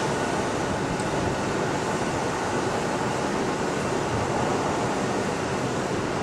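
Steady rumble and hum of an electric train in a station trainshed, with faint steady whining tones over it.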